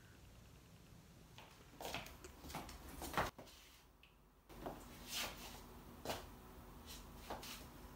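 Faint handling noises, with soft rustles and light knocks from a leather handbag and its wearer moving, broken by a short near-silent gap about three seconds in.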